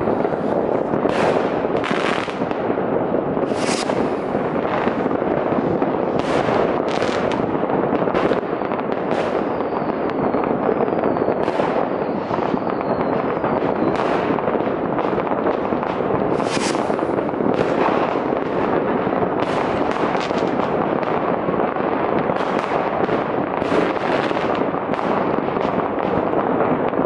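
Many New Year's Eve fireworks going off at once across a city: a continuous crackling rumble of rockets, firecrackers and batteries, with frequent sharper bangs standing out. A few faint whistles are heard about ten seconds in.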